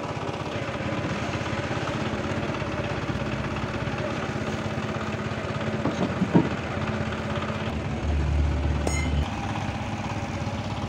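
An engine idling steadily, with one sharp knock about six seconds in and the low hum swelling for about a second shortly after eight seconds.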